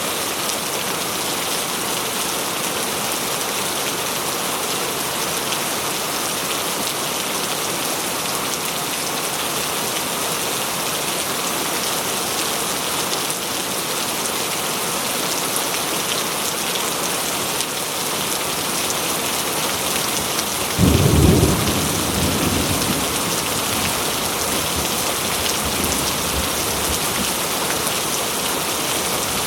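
Heavy rain pouring steadily, with a clap of thunder rumbling in about two-thirds of the way through and fading over a few seconds.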